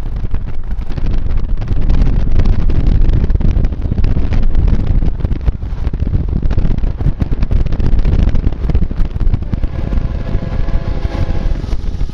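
Wind buffeting the microphone and road rumble from a car driving with its window open. About ten seconds in, a steady chord of several held tones rises over the noise, fitting the air horn of the CSX freight locomotive sounding for the grade crossing.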